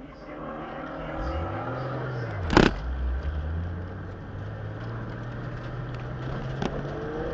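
Single-turbo Toyota Supra Mk4's straight-six engine blipped once, the revs rising and then falling back. A loud sharp crack comes as the revs drop. The car then pulls away at low revs, the engine note climbing gently.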